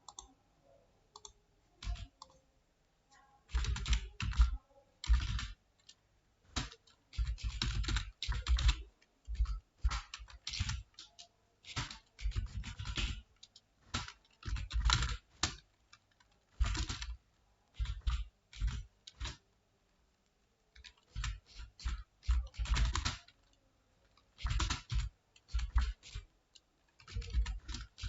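Computer keyboard being typed on quickly, in runs of rapid keystrokes broken by pauses of a second or two.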